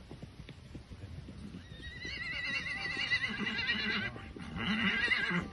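A horse whinnying: a long, wavering, high-pitched call starting about two seconds in, breaking off briefly and resuming near the end. Faint hoofbeats of an Icelandic horse at tölt run underneath.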